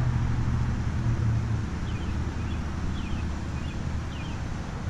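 Low, steady engine hum, louder for about the first second and a half and then fainter, with a few faint high chirps in the middle.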